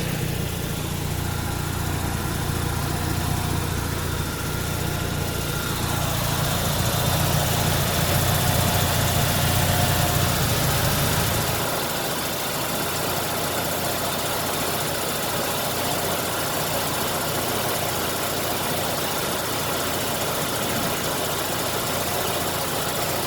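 Mazda RX-7's rotary engine idling with the air conditioning running, under a steady rushing noise. A strong low hum stops suddenly about halfway through while the rushing goes on.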